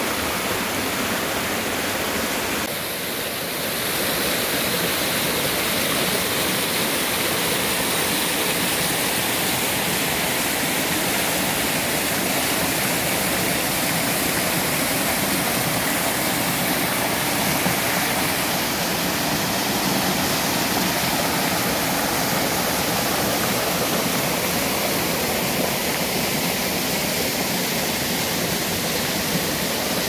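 Mountain stream cascading over rocks into a pool: a steady rush of falling water, dipping slightly about three seconds in.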